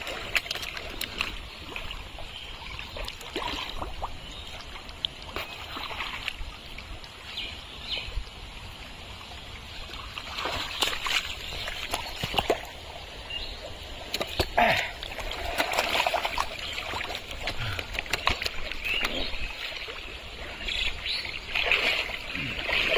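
Splashing and squelching in shallow watery mud as hands dig and grab at fish, with the fish thrashing in the mud. The splashes come irregularly and get busier and louder from about halfway through and again near the end.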